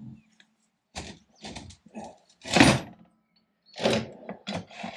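Irregular short scrapes and knocks from hand work on a metal lathe chuck, about nine in all with brief pauses between them, the loudest about halfway through.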